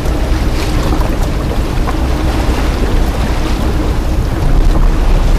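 Moving boat heard from the waterline: a steady low rumble with water rushing and splashing along the hull, and wind on the microphone. The low rumble grows louder about four and a half seconds in.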